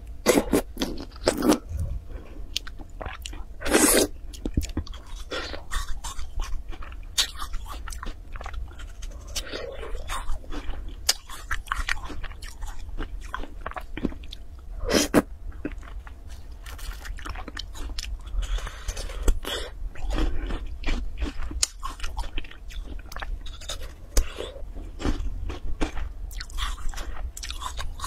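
Close-miked biting and chewing of food taken off a wooden stick: irregular crunchy and wet chewing clicks, with the loudest bites about four seconds in and again about fifteen and nineteen seconds in.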